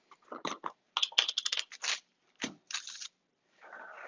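A small glass jar of espresso sugar being handled: a quick run of clicks and scratches as the lid is worked and the jar is moved about. A soft paper rustle follows near the end as a cookbook page is turned.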